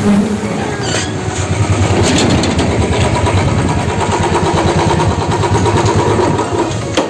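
Royal Enfield single-cylinder motorcycle engine running at low speed as the bike rolls up slowly, a steady rapid beat of firing pulses. A sharp click sounds near the end.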